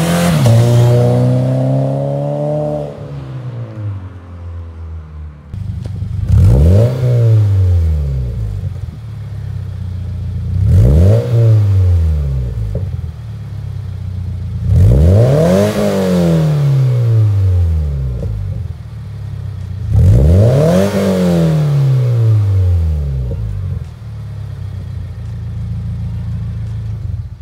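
Car engine breathing through a newly installed aftermarket exhaust with mufflers, resonator and titanium tips, revved repeatedly from idle: a rev falling away at the start, then four quick revs about every four to five seconds, each climbing fast and dropping back to a steady idle. The exhaust has a deep, aggressive tone.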